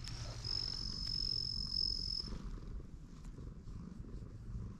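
Orange-and-white cat purring with a low steady rumble while being stroked on the head. A thin, steady high tone sounds for about two seconds near the start.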